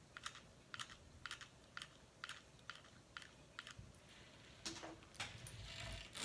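Hot glue gun being squeezed, its trigger giving faint short clicks about twice a second as the glue is fed out, followed by soft handling noise near the end.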